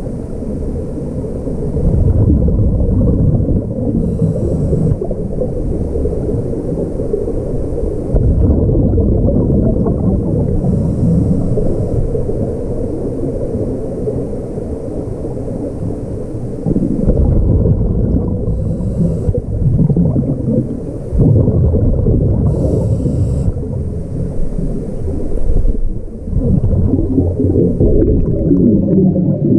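Scuba regulator breathing heard underwater: a short high hiss with each inhale and a low gush of exhaled bubbles that swells every several seconds.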